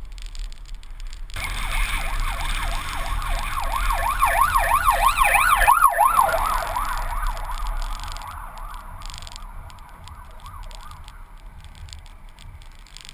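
Emergency vehicle siren wailing in rapid up-and-down sweeps, growing louder to a peak about halfway through and fading away about two-thirds of the way in. Under it runs the low rumble of wind on a camera mounted on a moving car's roof.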